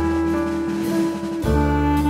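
Instrumental background music with held notes; the notes change about one and a half seconds in.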